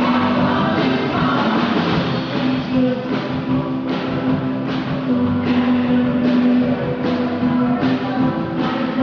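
Live rock band playing a song with singing over a steady drum beat, picked up from far off by a phone's microphone in a large hall.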